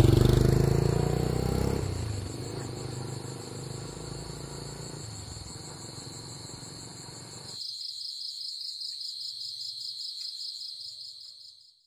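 Insects chirping in a fast, even pulse, high-pitched and continuous. Over the first few seconds a motorbike engine fades away beneath them. In the last few seconds the chirping is heard alone and louder, then stops abruptly.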